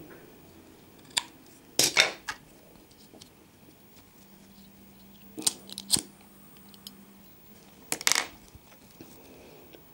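Steel scissors snipping the thread end and clicking as they are handled, in a few short sharp bursts: around two seconds in, again around five and a half to six seconds, and once more near eight seconds.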